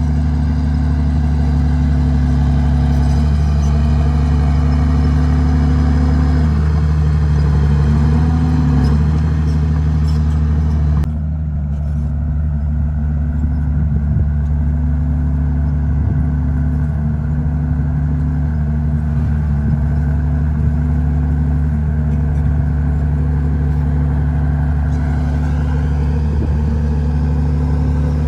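Komatsu D51PX bulldozer's diesel engine running steadily at work, its pitch dipping briefly several times. About eleven seconds in, the higher-pitched clatter suddenly drops away while the engine keeps running.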